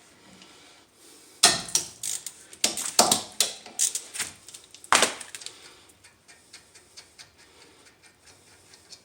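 Ratchet and socket on a 14 mm brake caliper bolt: sharp metallic clicks and clanks in several bursts over the first five seconds, then fainter ticks as the bolt comes out.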